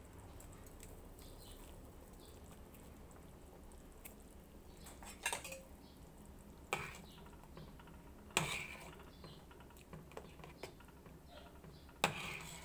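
Pot of batchoy broth at a rolling boil, bubbling and popping in small ticks, with four sharp metal clinks spread through, the loudest two near the middle and at the end.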